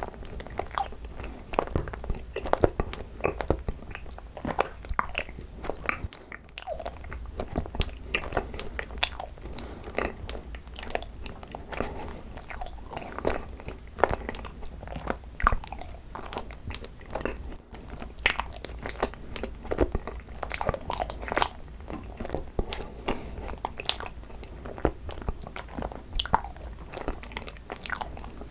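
Close-miked chewing of cream-cheese-filled Korean rice cake (tteok): soft, chewy bites with many short, irregular mouth clicks.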